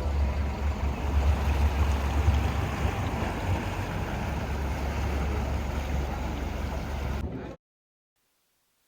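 Boat engine running with a steady low rumble under the rush of water, cutting off abruptly about seven and a half seconds in.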